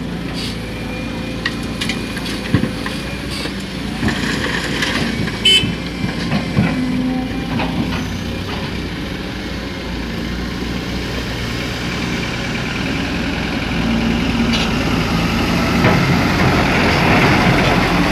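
Diesel engine of heavy earthmoving machinery running steadily, with a few sharp knocks in the first half. It grows louder and noisier toward the end.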